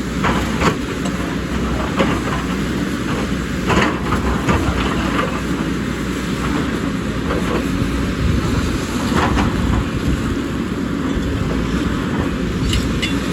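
Diesel engine of a JCB excavator running steadily under load, with irregular metallic clanks and knocks from the machine working, several in the first five seconds and a few more later.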